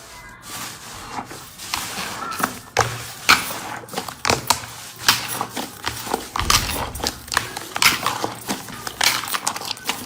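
Slime being squeezed and pressed by hand, a fast irregular run of crackling pops and clicks.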